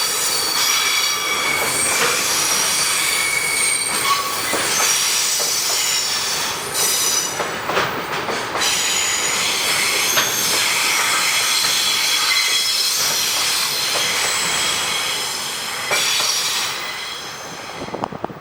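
Steel wheels of a passing train squealing on the rails, several high shrill tones wavering over the running rumble, with a few knocks, fading away near the end.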